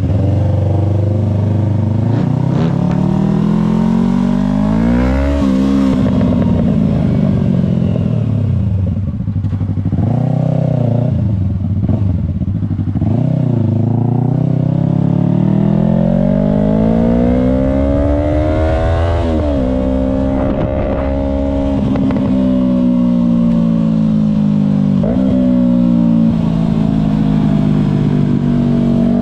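2023 Yamaha R3's parallel-twin engine through an M4 Street Slayer exhaust, ridden hard. It revs up and drops back repeatedly as the bike accelerates, shifts and slows, then holds a steadier pitch for the last several seconds.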